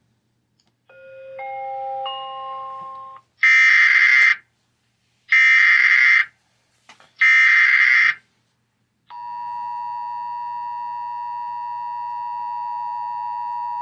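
Emergency Alert System broadcast alert: a short three-note rising chime, then three one-second bursts of SAME digital header data, then the steady two-tone EAS attention signal, which starts about nine seconds in and holds. Together they announce a severe thunderstorm warning.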